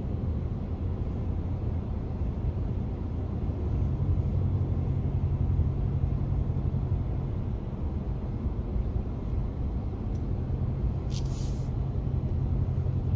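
Steady road and engine rumble of a car driving, heard from inside the cabin, with a short hiss about eleven seconds in.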